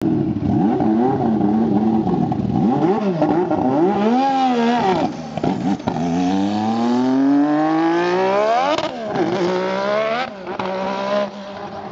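Honda RA168E 1.5-litre turbocharged V6 of a McLaren MP4/4 Formula One car. It revs unevenly at low speed at first, then accelerates hard in one long rising pitch that breaks off at an upshift, followed by shorter rises and further upshifts as it pulls away and fades.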